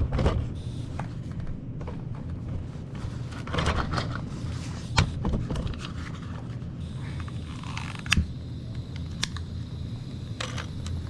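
Clicks and scraping from hands working a gas boiler's control valve knob to set it to pilot, over a steady low hum. Sharp single clicks come about five, eight and nine seconds in.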